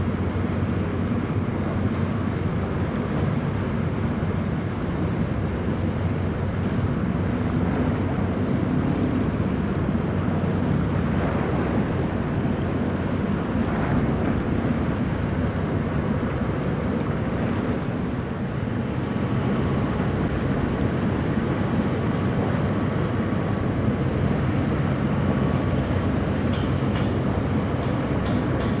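Strong wind blowing across the microphone over a steady low rumble.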